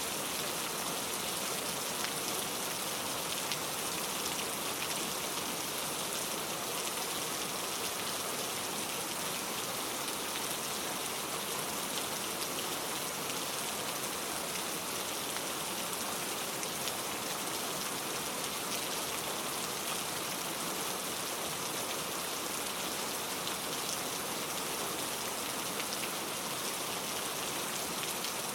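Steady rain falling without thunder, an even hiss of drops with scattered individual drop taps.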